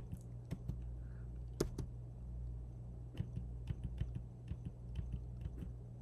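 Computer keyboard keys tapped in quick, irregular clicks, a few a second, with one louder click about a second and a half in, over a faint steady hum.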